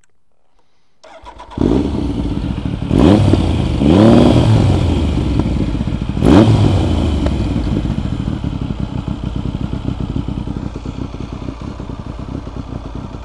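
Triumph 900 three-cylinder motorcycle engine started about a second and a half in, revved with three throttle blips, then left running steadily through a single aftermarket silencer. By the owner's account its carburettor jetting is well out with the K&N pod air filters.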